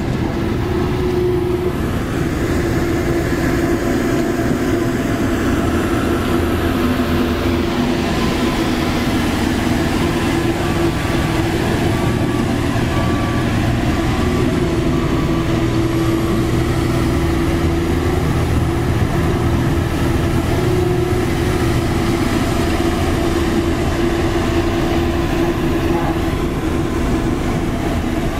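Hamm 3410 padfoot single-drum roller's diesel engine running steadily as the roller drives slowly, with a steady whine over the low engine rumble.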